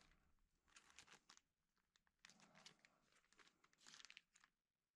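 Clear plastic packaging bag crinkling as it is handled, in three faint bursts.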